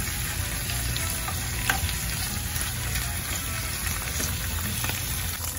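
Leafy greens and garlic sizzling in hot olive oil in a deep pan as they wilt. A silicone spatula stirs them, with a few light scrapes against the pan.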